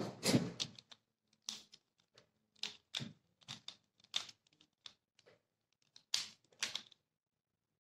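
Plastic Pyraminx puzzle being turned by hand: an irregular string of sharp plastic clicks and clacks as its layers snap round, stopping near the end.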